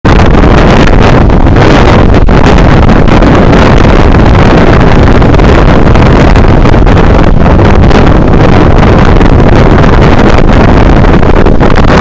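Nor'easter wind blasting the microphone in a loud, steady rumble over heavy storm surf breaking and washing up the beach.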